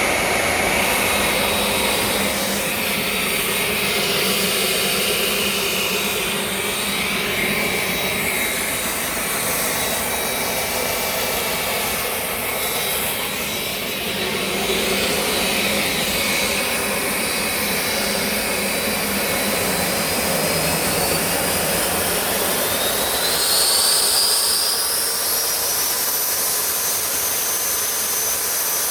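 Homemade turbojet engine built from a T4 turbocharger running with a steady rushing noise and a high whine. About twenty-one seconds in, the whine rises in pitch as the engine spools up, briefly getting louder.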